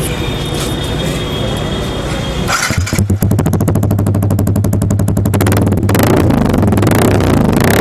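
Yamaha R15 V3's single-cylinder 155 cc engine idling through an aftermarket SC custom slip-on exhaust, with an even, rapid exhaust pulse. It gets louder about three seconds in and again about six seconds in.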